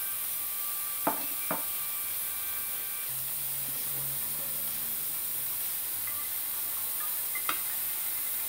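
Steady hiss of a pot cooking on the stove, with a few sharp metal clinks of a spoon on cookware: two about a second in and one near the end, as raisins are spooned into the couscoussier's steamer basket.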